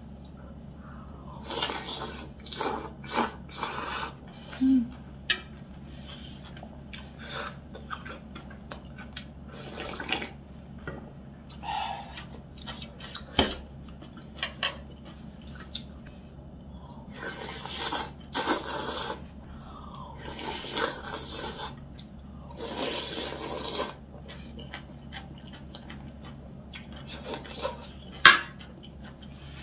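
Someone eating chicken broth soup, slurping from a metal spoon and a stainless steel bowl, in several short bursts. Spoon clinks against the steel bowl come between them, and one sharp clink near the end is the loudest.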